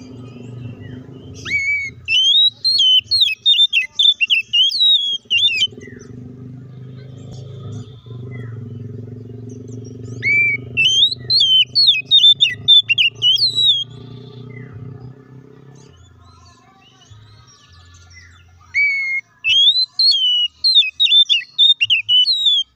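Oriental magpie-robin (kacer) singing in three bouts of quick, sharply rising and falling whistled notes, each a few seconds long, with pauses between. A low steady hum runs underneath through the first two-thirds.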